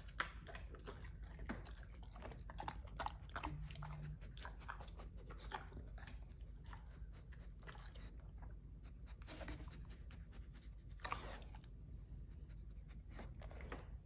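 German shepherd chewing a small treat: a run of short crunches and teeth clicks, thickest in the first half and thinning out later.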